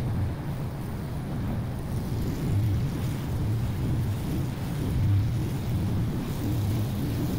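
Honda walk-behind lawn mower's single-cylinder four-stroke engine running steadily across the yard, mixed with wind rumbling on the microphone.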